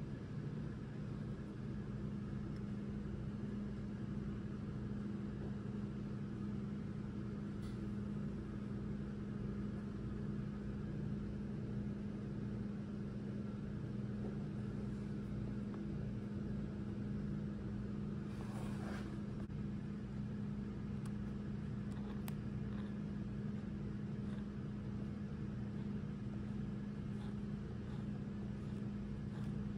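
A steady low hum at an even level, with one brief rustle about two-thirds of the way through.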